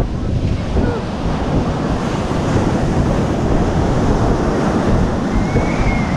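Surf breaking and washing up the shore, a steady wash of noise, with wind buffeting the microphone.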